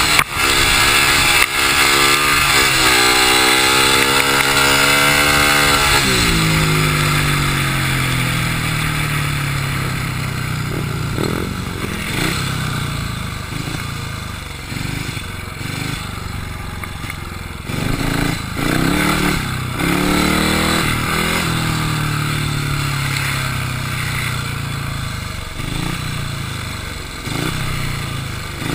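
Speedway motorcycle's single-cylinder engine at hard throttle, its pitch climbing for the first few seconds. About six seconds in, the pitch drops and the engine runs lower and gradually quieter, with repeated short throttle blips through the rest of the stretch.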